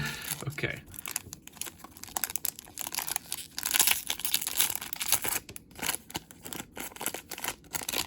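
Crinkling and tearing of card-pack packaging by hand, a dense crackle that swells about halfway through.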